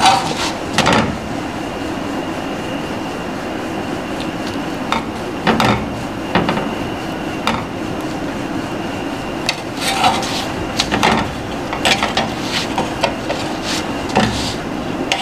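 Metal tongs clicking and knocking against an iron tawa as a roti is pressed and turned, a dozen or so separate taps over a steady hiss.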